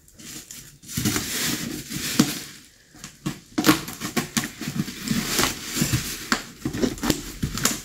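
Scissors snipping into a taped plastic parcel wrapper, the plastic crinkling and rustling as it is handled and cut. Irregular rustling at first, then a run of sharp clicks and crackles.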